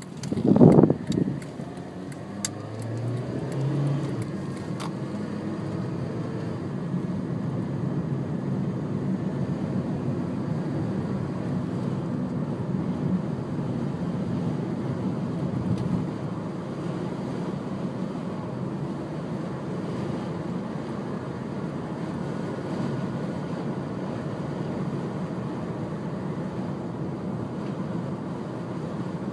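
Steady low rumble of a car driving through a dust storm, heard from inside the cabin: wind and road noise with no clear engine note. A brief loud burst comes about a second in.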